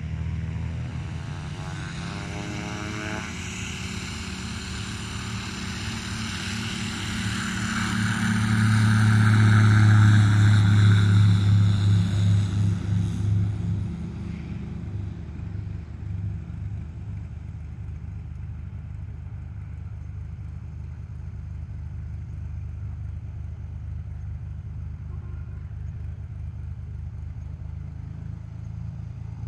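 Sling TSi light aircraft's Rotax 915 iS engine and propeller at takeoff power. The drone swells as the plane rolls past, loudest about eight to thirteen seconds in, then fades to a steady distant hum as it climbs away.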